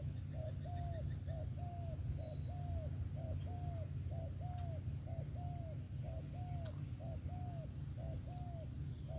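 Spotted dove cooing, a steady run of short coos, usually a quick note followed by a longer arched one, repeating about once a second. This is the song pattern its keepers grade as a '1-2' with an occasional '3'. A steady low hum runs underneath, and there is one sharp click near the end.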